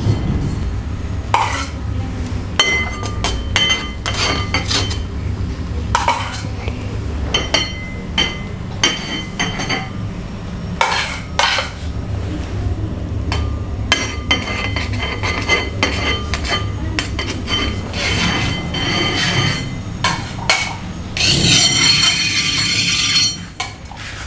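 Metal utensils clinking and scraping: a palette knife knocking against a metal cake turntable, with irregular sharp clinks, some ringing briefly, over a steady low hum. A denser run of scraping and clinking comes near the end.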